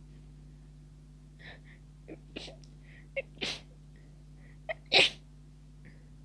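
A person's stifled sneezes, brought on by the tickle of a lingering cold: a few quick catches of breath, then one sneeze about three and a half seconds in and a louder one about five seconds in, each a short held-back burst.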